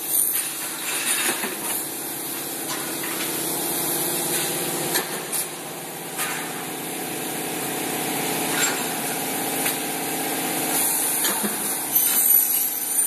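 Aluminium-working machinery running: a steady motor hum with scattered clicks and knocks. Near the end comes a high screech, a saw cutting aluminium profile.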